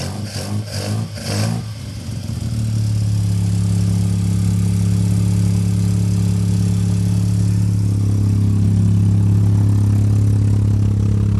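Street-ported Mazda 12A rotary engine with a Mikuni side-draft carburettor and Flowmaster muffler, running unevenly with a pulsing beat for about the first two seconds, then settling into a steady idle. Its pitch rises slightly about eight seconds in.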